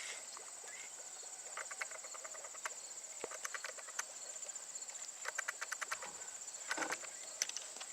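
Insects trilling steadily at a high pitch, a fine continuous pulsing chirr, with a few short runs of light clicking and rustling.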